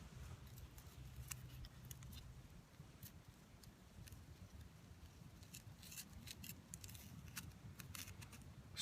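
Faint, irregular clicks and crunches of charcoal pieces being broken up and mixed into pine pitch inside a wooden cup.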